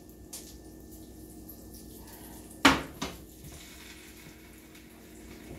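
A metal baking pan clanks once loudly against the oven or stovetop, with a softer second knock just after it, over a faint steady hum.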